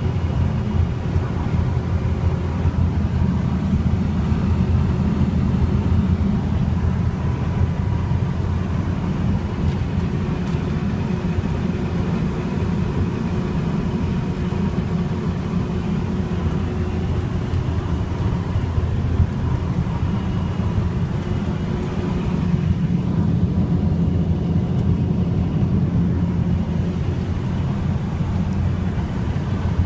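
Mack AC six-cylinder diesel of a 2006 Mack Vision CXN613 truck, running steadily as a low drone heard from inside the cab while driving, with road and wind noise.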